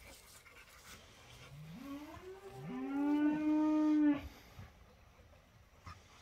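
A cow mooing: one long call that rises in pitch, then holds steady for about a second and a half and cuts off about four seconds in.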